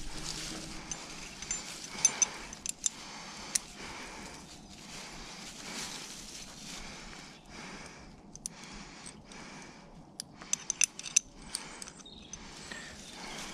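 Climbing rope being handled and pulled through the hands, rustling against itself and dry leaves, with sharp metallic clicks of a carabiner: a few about two to three and a half seconds in and a quick cluster about ten to eleven seconds in.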